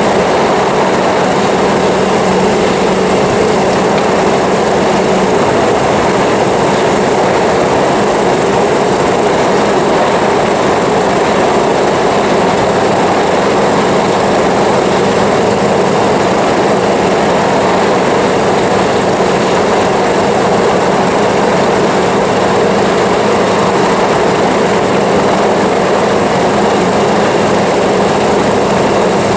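A 1938 Austin 10's four-cylinder sidevalve engine running steadily at cruising speed, under loud, even road and wind noise.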